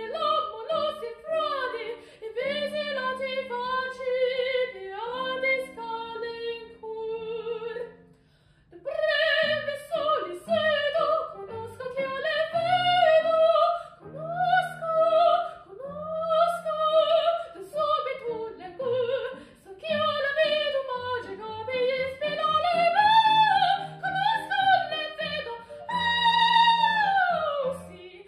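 A young woman singing an Italian opera aria in full classical voice with vibrato, over a steady accompaniment of held notes. The singing breaks off briefly about eight seconds in, then resumes.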